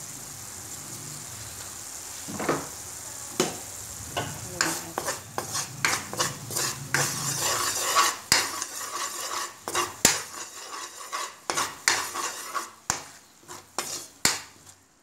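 Spatula stirring and scraping thick sautéed shrimp paste (bagoong) around a pan while it sizzles. The scrapes and taps come sparsely at first, get quick and busy in the middle, and thin out near the end.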